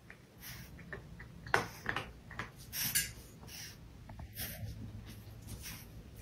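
A French bulldog puppy making a scattered series of short, breathy sounds as it snaps at a cat's swinging tail.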